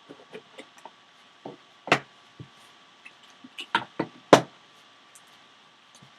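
A cardboard trading-card hobby box and its contents being handled: irregular light taps and clicks, with two louder knocks about two seconds in and about four and a half seconds in.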